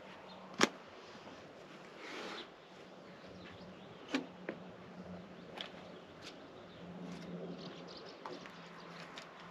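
A few sharp knocks or taps, the loudest about half a second in, over a faint steady hum.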